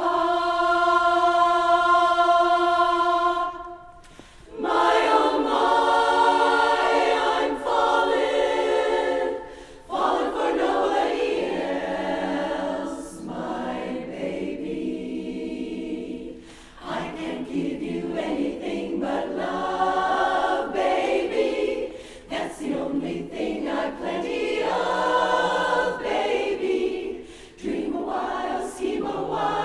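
A barbershop chorus singing a cappella in close harmony, in phrases broken by short pauses for breath. It opens on one steady held tone lasting about three and a half seconds.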